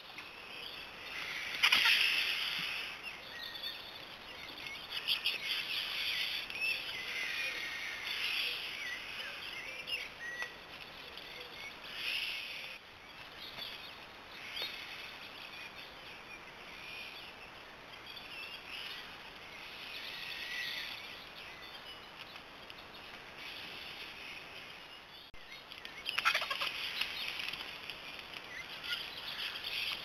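Scattered bird calls and thin chirps, with a short loud burst about two seconds in. Near the end comes a longer noisy spell of wing flapping and harsh squawking calls as griffon vultures crowd in at the carcass.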